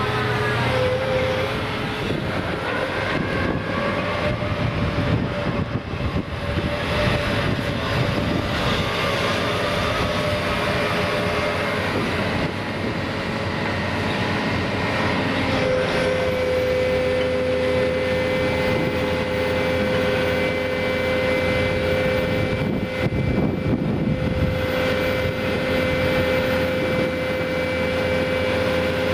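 Atlas 350 material handler's diesel engine and hydraulics running under load as the machine works its clamshell grab. A steady whine joins about halfway through and holds.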